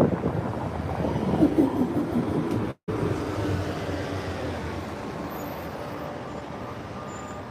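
A natural-gas city bus running close by. Its engine noise has a wavering rumble. It breaks off abruptly a little under three seconds in and gives way to a steadier street-traffic hum that slowly fades.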